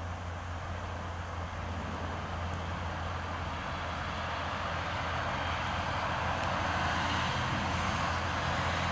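Background noise of road traffic: a steady low hum under a broad rush that slowly grows louder.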